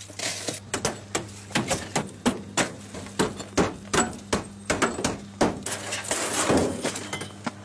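Hammer blows on a wrecked car's shattered laminated windscreen and frame: sharp knocks, about two or three a second, knocking the glass loose. Near the end they give way to a rougher crunching of broken glass as the windscreen comes away.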